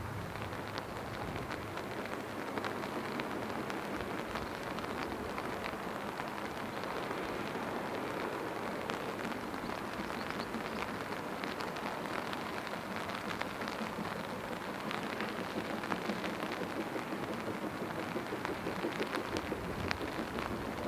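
Steady rain falling, an even hiss dotted with many small ticks of drops striking close by.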